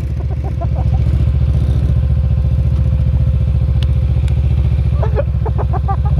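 Small go-kart engine idling steadily, with an even low pulsing exhaust beat.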